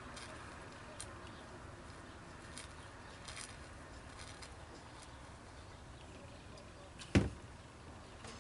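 A glass beer bottle set down on a table with one sharp knock near the end, over a faint steady background hiss.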